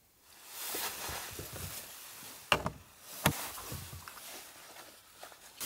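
Rustling and handling noises, with two sharp clicks a little under a second apart about halfway through.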